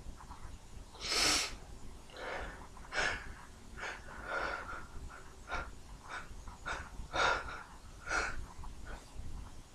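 A man's short, irregular sniffs and gasping breaths during a bout of stifled sneezing, with a louder hissing breath about a second in.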